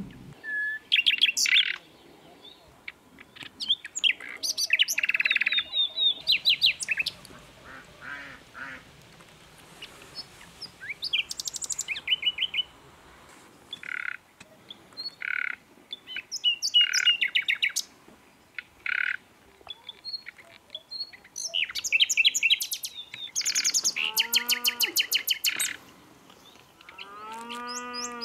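Songbirds singing and chirping in separate bursts, with fast high trills and runs of repeated sharp notes. Near the end come a few lower calls that rise and fall in pitch, repeated several times in quick series.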